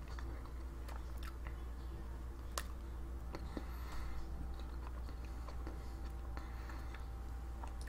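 Close-up mouth sounds of someone chewing a peanut butter and jam sandwich: irregular soft smacks and clicks over a steady low hum.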